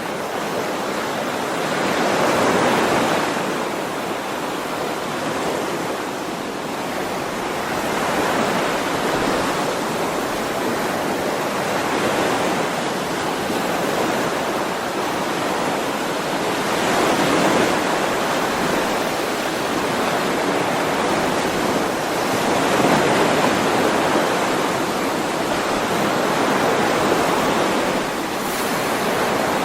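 Ocean waves breaking and washing on the shore in a continuous surf noise that swells and eases every few seconds.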